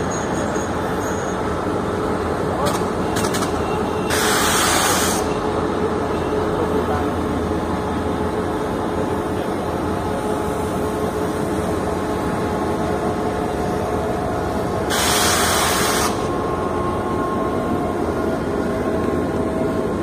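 ADtranz diesel locomotive and its passenger coaches rolling through a station, a steady engine and wheel rumble with a faint steady tone. Two short loud bursts of hiss come about four seconds in and again about fifteen seconds in.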